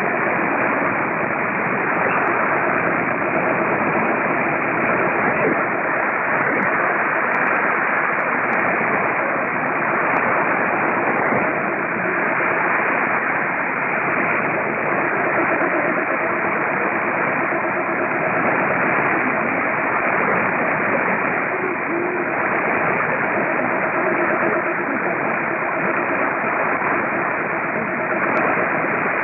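Weak shortwave AM signal on 6115 kHz received in synchronous AM mode: steady hiss and static, thin and muffled, with a faint, barely readable station underneath.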